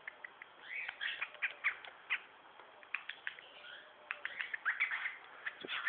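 Pied cockatiel chattering: a quick, irregular run of short chirps and clicks coming in clusters, busiest about a second in and again in the last second and a half.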